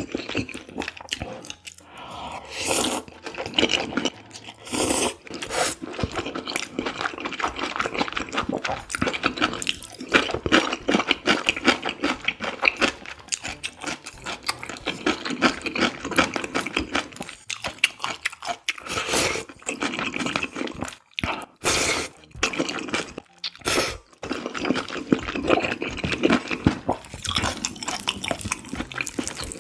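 Close-miked eating sounds: a man slurping and wetly chewing soupy knife-cut noodles in spicy broth, a dense run of small wet smacks and clicks with brief pauses, with light scrapes of wooden chopsticks.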